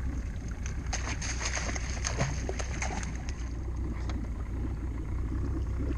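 A small boat's outboard motor idling steadily, with water lapping at the hull. From about one to three and a half seconds in there is a splash and a scatter of clicks and knocks as a collapsible crab pot is thrown back into the creek and its rope is paid out.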